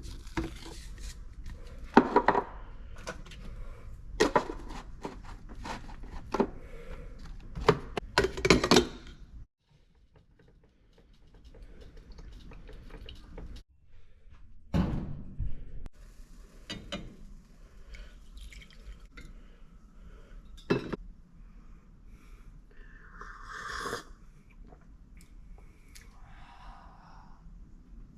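Irregular knocks and clatter, as of hard objects being handled and set down, with no power tool running. The knocks come thickly for several seconds, stop dead for a few seconds, then return more sparsely.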